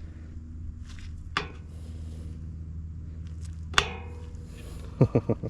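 Sharp clicks and knocks of hands working a switch into a mower's plastic dash panel: one click, then a louder ringing one, then a quick run of four knocks near the end. A steady low hum runs underneath.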